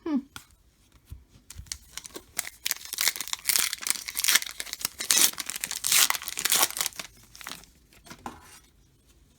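Plastic foil wrapper of a baseball card pack being torn open and crinkled, several seconds of dense crackling that is loudest midway and dies away near the end.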